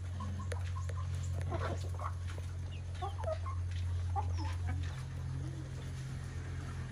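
A flock of chickens clucking in short, scattered calls while they feed, with a few sharp clicks, over a steady low hum.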